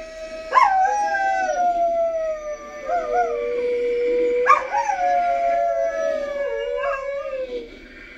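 A dog howling: long, drawn-out calls that leap up sharply about half a second in and again about four and a half seconds in, then slowly slide down in pitch. Behind them runs a steady chorus of frogs.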